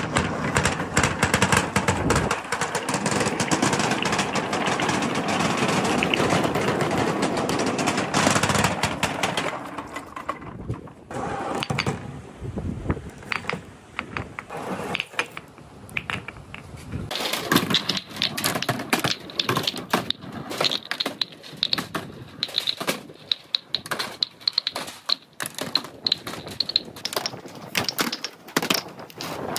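Many billiard balls rolling down a long ramp together in a dense, steady rumble for the first third. It thins out, and from about halfway in the balls clack sharply against one another again and again, with a short bright ring, as they run into the gutter channels and pile up.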